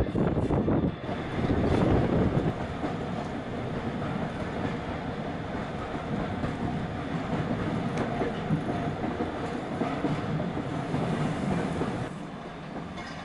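Heritage railway carriage running along the track, heard from inside the compartment: a steady rumble with occasional clicks from the wheels over the rail joints. It is louder for the first couple of seconds, with the window open.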